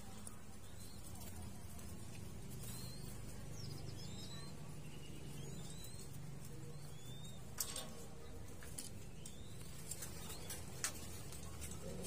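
Zebra dove chicks begging to be fed by a ring-necked dove: scattered thin, high squeaks amid soft wing flutters, with two sharp clicks in the second half.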